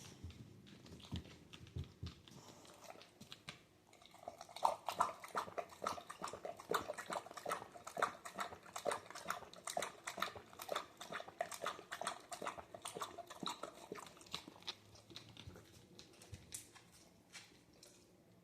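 A dog lapping and slurping chicken soup from a bowl: a quick, steady run of wet laps from about four seconds in, thinning out after about ten seconds, with a few scattered licks before and after.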